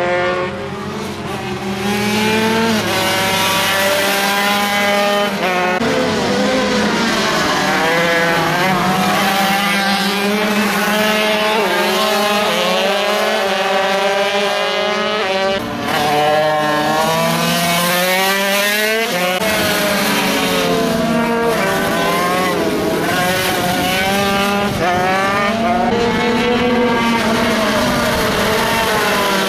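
Several MiniGP racing minibike engines running at race pace, overlapping, each high-pitched note repeatedly climbing and then dropping as the bikes accelerate, shift and brake.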